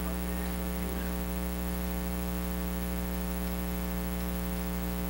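Steady electrical mains hum: a buzz made of many evenly spaced tones, holding level throughout.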